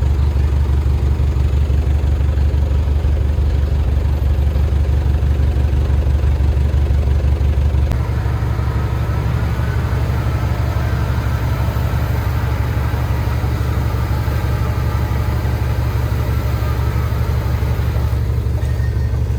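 Heavy diesel engine of earthmoving equipment (a bulldozer or dump truck) running steadily with a low, even throb. The engine note shifts slightly about eight seconds in, and a faint higher whine comes in for much of the second half.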